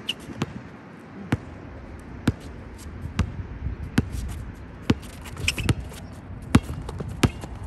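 Basketball dribbled on an asphalt court, one bounce a little under every second.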